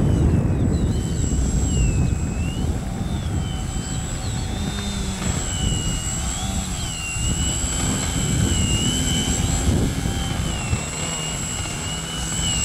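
Electric motor and propeller of a small foam 3D aerobatic RC plane whining, the pitch rising and falling with the throttle as it hangs nose-up in a hover. Low wind rumble on the microphone runs underneath.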